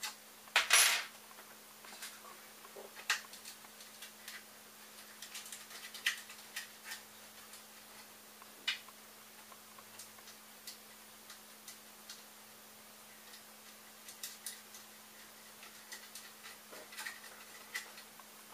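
Small hard plastic and metal parts clicking and knocking as a 3D-printed carriage and its linear bearings are handled and fitted, with a louder clatter about a second in. A faint steady hum lies underneath.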